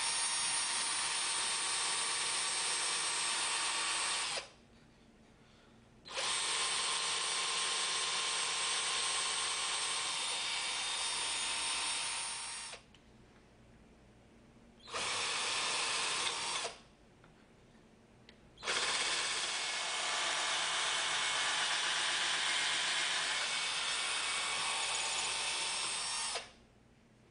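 Electric hand drill boring a hole into a wooden block, running at a steady speed in four bursts with short pauses between: the first about four seconds, the second about six, a brief third of under two, and a long fourth of about eight.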